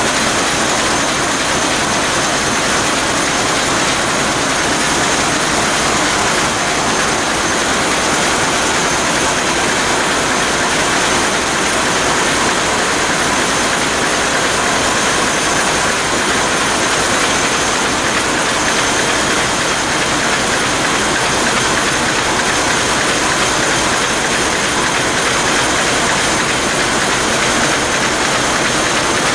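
Burmeister & Wain seven-cylinder two-stroke marine diesel engine (DM742 VT2 BF90) running steadily, heard close to its valve gear as a loud, even mechanical din.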